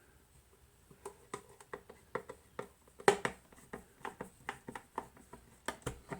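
Irregular light clicks and knocks of a Weller TC202 soldering station's case and parts being handled and fitted back together, about two or three a second, the loudest knock about three seconds in.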